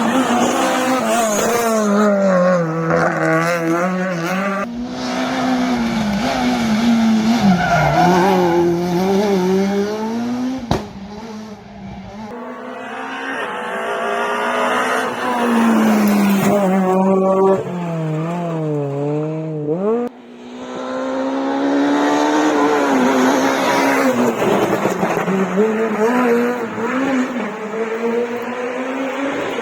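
Rally cars at full attack on a special stage: engines revving hard and dropping again through repeated gear changes and lifts, with tyre squeal. The sound breaks off sharply twice, about a third and two-thirds of the way through, as one pass gives way to the next.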